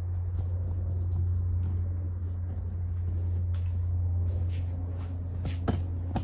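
A steady low hum with scattered light knocks and scuffs from footsteps on a concrete floor; the knocks come a little stronger near the end.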